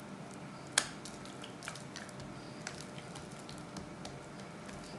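Oily roti dough being stretched and pressed out by hand on a wooden cutting board: faint soft squishing with scattered small clicks, and one sharper tap about a second in.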